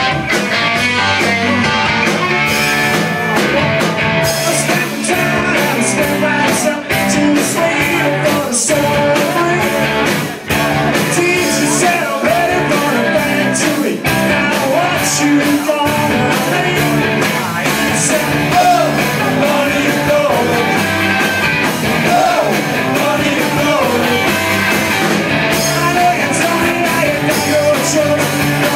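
Live rock band playing electric guitars, bass guitar and a drum kit, with a lead vocal sung into a microphone. Steady driving beat throughout.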